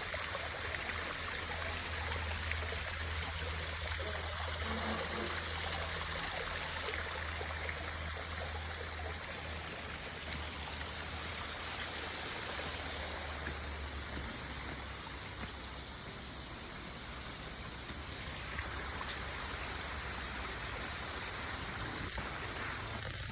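Running water rushing steadily, like a stream or small waterfall, with a low rumble underneath for the first half or so.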